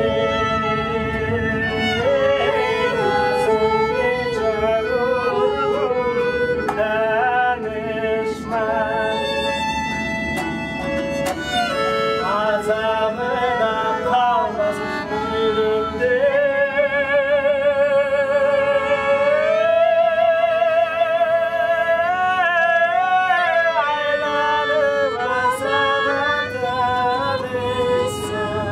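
A violin playing a slow melody with vibrato and a man singing, over a steady low hum.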